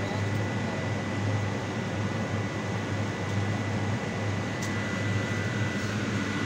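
A machine running with a steady low hum and a thin, faint high whine above it, with one light click a little after the middle.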